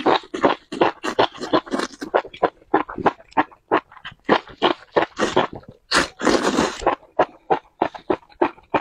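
Close-up eating sounds: a man biting, slurping and chewing spicy enoki mushrooms, wet mouth-smacking in quick succession, with a longer slurp about six seconds in.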